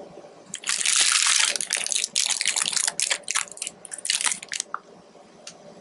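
Crinkling and rustling of plastic cookie packaging handled close to the microphone, in dense crackly bursts that die down to a few scattered clicks near the end.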